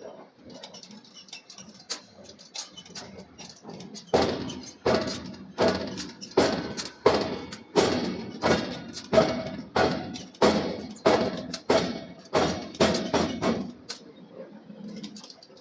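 A forging hammer striking a hot steel billet in a steady rhythm, about sixteen heavy blows at roughly one and a half a second, each with a short ring, stopping about two seconds before the end. Lighter clatter comes before the blows begin.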